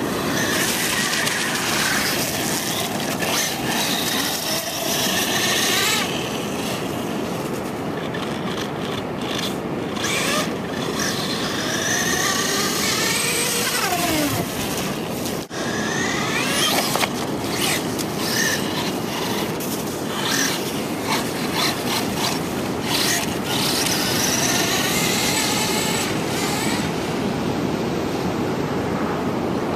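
Brushless electric motor of a Traxxas Slash radio-controlled truck whining up and down in pitch several times as it is throttled, over a steady rush of surf and wind.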